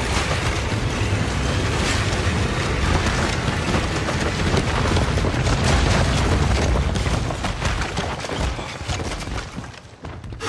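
Film sound effects of a horde of bodies pouring over a cliff and crashing onto the rocks below: a continuous rumbling crash packed with thuds and impacts, which dies away shortly before the end.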